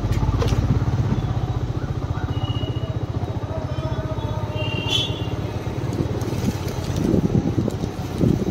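Motor vehicle engine running steadily with a fast, even low pulse. Short high beeps come twice around the middle.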